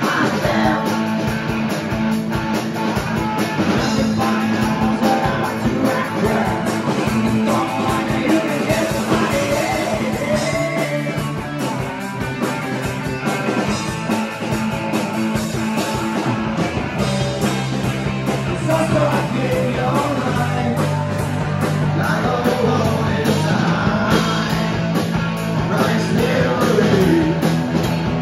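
A rock band playing live: a drum kit with steady cymbal hits, electric guitars and a bass guitar holding low notes, with a singer's voice over them.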